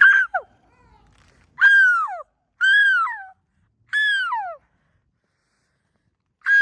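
Gull calling five times, each call loud and held briefly before dropping in pitch at its end, with a longer pause before the last one.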